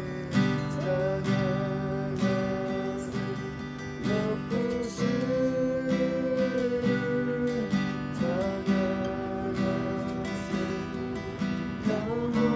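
Acoustic guitar strumming chords in a steady rhythm, with a sustained melody line held over it.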